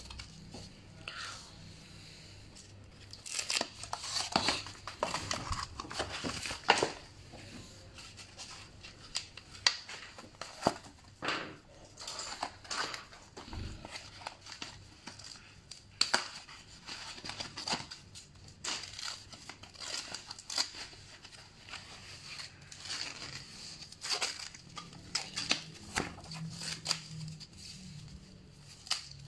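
Packaging being handled and pulled off a new mountain bike: plastic and bubble wrap crinkling and rustling, with tape and foam wrapping tearing, in irregular bouts that are busiest from about three to seven seconds in.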